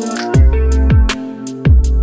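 Background electronic music with a heavy beat: deep bass kicks that slide down in pitch and sharp, crisp percussion hits several times a second.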